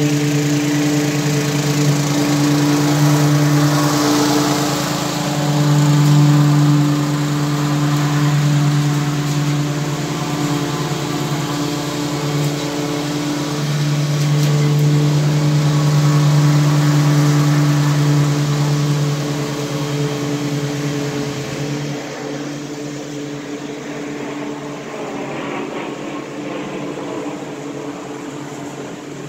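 Walk-behind lawn mower with a Honda 270cc 8.5 hp engine running steadily at constant speed while mowing. It grows louder and fainter as the mower passes near and moves away, and is fainter near the end.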